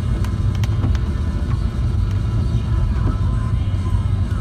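Steady low rumble of a car driving on a wet road, heard from inside the cabin, with a few light ticks.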